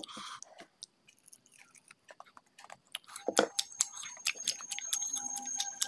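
Close-up chewing of mutton curry and rice eaten by hand: quiet at first, then a quick run of wet mouth clicks and smacks from about three seconds in.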